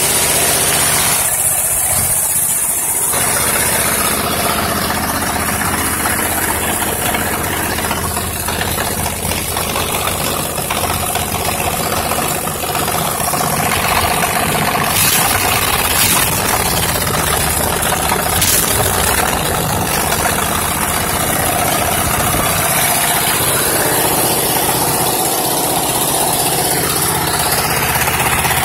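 Rebuilt 21 hp Briggs & Stratton small engine running steadily.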